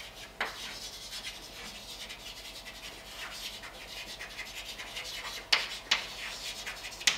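Chalk scratching and scraping across a blackboard as formulas are written, in short strokes. A few sharp taps of the chalk against the board stand out, most of them in the last two seconds.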